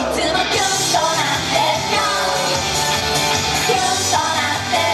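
Young woman singing a J-pop idol song live into a microphone over pop backing music played through PA speakers.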